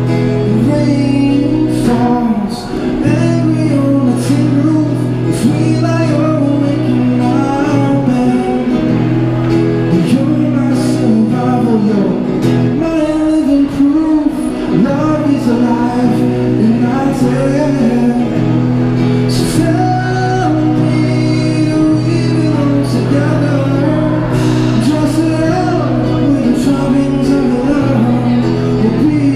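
A male singer-songwriter singing a song into a microphone while strumming a Yamaha acoustic guitar, a wavering sung melody over steady strummed chords.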